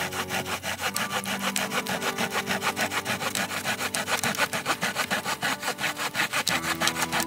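Hand saw cutting through a wooden log with quick, even back-and-forth strokes.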